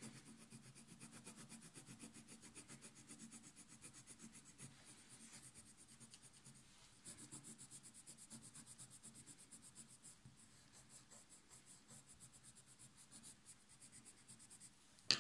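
Faint, rapid strokes of a coloured pencil shading on sketchbook paper, about four strokes a second, with a short pause about six seconds in.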